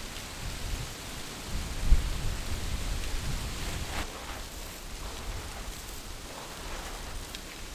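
Snow being dug and scraped away by hand, a soft crunching hiss with a few scrapes, under a low rumble that is strongest about two seconds in.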